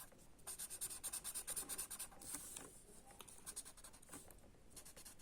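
Faint back-and-forth colouring strokes on paper, filling in an area of a drawing: a fast run of strokes for the first couple of seconds, then slower, scattered ones.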